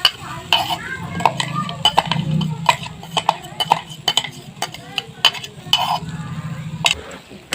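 A spoon stirring a thick paste of ground nuts in a pan, knocking against it irregularly about two or three times a second, over a low steady hum that stops near the end.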